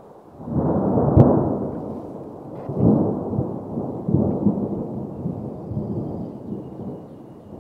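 Low rumble of a moving train heard from inside the coach by the window, swelling in irregular surges and slowly dying down toward the end.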